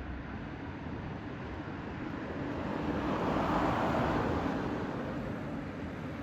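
Street traffic: a road vehicle goes by, its noise swelling about three seconds in and fading again over a steady background hum.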